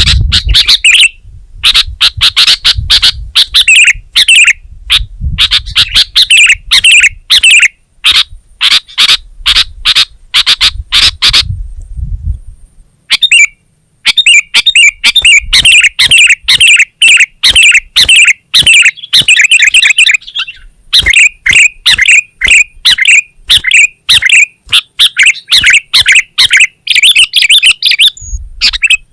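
Sooty-headed bulbul singing and chattering: a rapid, loud run of bright notes in quick succession, broken by a short pause about twelve seconds in. A low rumble sits under the first part.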